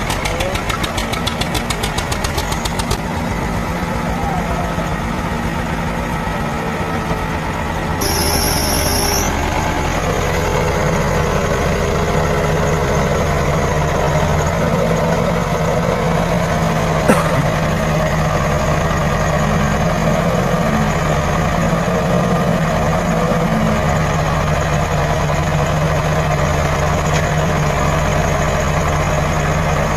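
Diesel engine of a JCB backhoe loader running steadily, then running louder about eight seconds in. A brief high whine sounds at that moment and a single sharp click comes later.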